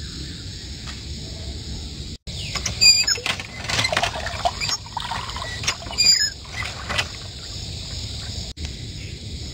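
Water pouring from a metal pipe and splashing into a clay pot, in irregular splashes from about two and a half seconds in, with a few high chirps over it.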